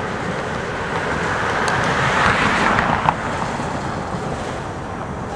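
CSX freight train's cars rolling past: steady wheel-on-rail noise that swells about two seconds in, with one sharp clank just after three seconds.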